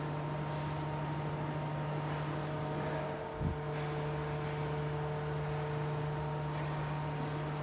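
Steady electrical hum with a few fainter higher tones above it, and a single short low bump about three and a half seconds in.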